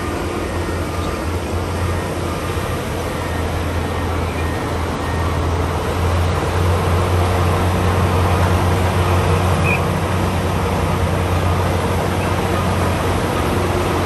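LiuGong B160C crawler bulldozer's diesel engine running steadily as it pushes soil, a low drone that grows a little louder about six seconds in.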